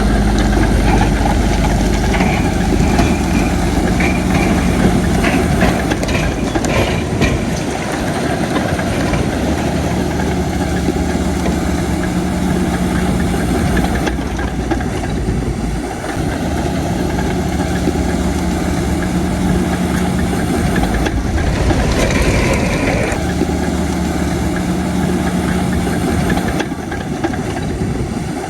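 Heavy diesel engine of a bulldozer running under varying load, its pitch shifting now and then, with a few sharp metallic knocks.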